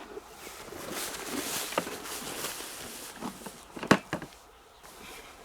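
Footsteps and rustling through vegetation, with a few sharp snaps; the loudest snap comes about four seconds in.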